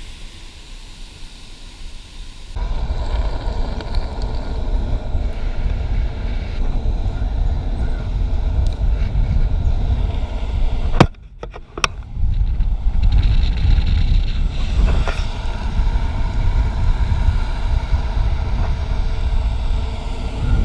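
Downhill longboard rolling fast on asphalt: a steady rumble of wheels on the road mixed with wind on the microphone, picking up a few seconds in. About halfway there is a sharp crack, the rumble briefly drops away, then resumes.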